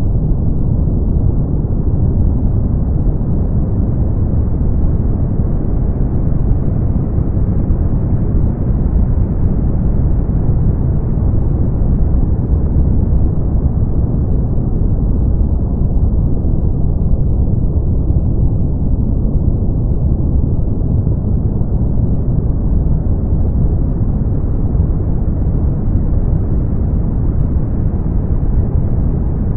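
Brown noise: a steady, deep, even rush with its weight in the bass and almost no treble. Its top end slowly brightens and dulls again over tens of seconds.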